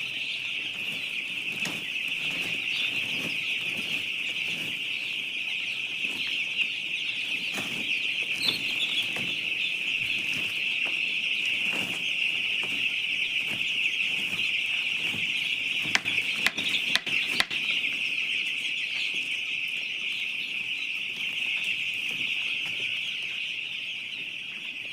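A large flock of broiler chicks peeping continuously in a dense, steady, high-pitched chorus. About sixteen seconds in there is a quick run of sharp clicks.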